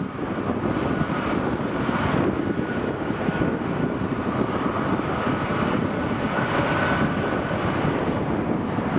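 C-17 Globemaster III's four turbofan engines running steadily with a faint high whine over a deep rumble, the aircraft held on the runway before its takeoff roll.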